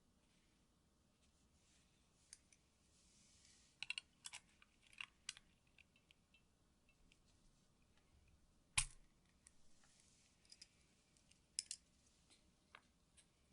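Mechanical keyboard keys clicking now and then, pressed a few at a time rather than typed steadily. There is a quick cluster of clicks about four to five seconds in, and the sharpest single click comes about nine seconds in.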